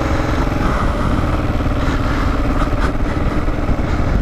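Kawasaki KLR650's single-cylinder engine running steadily as the motorcycle rides along.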